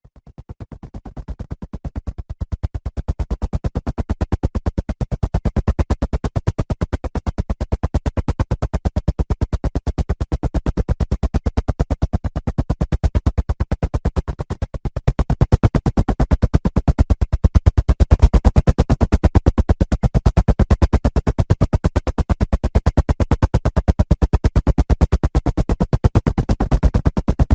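Helicopter rotor blades chopping in a rapid, even rhythm over the engine, growing louder through the first half and then holding steady, as the helicopter draws near and stays close.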